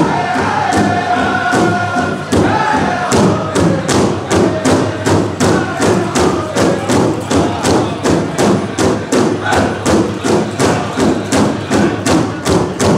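Powwow round dance song: singers chanting over a steady, even drum beat, about two to three beats a second.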